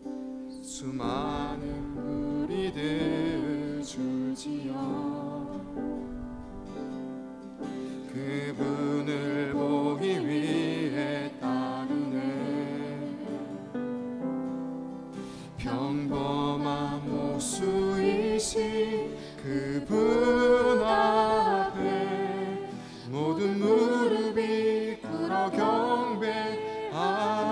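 A man sings a Korean worship song solo, accompanying himself on a strummed acoustic guitar, with short breaks between sung phrases.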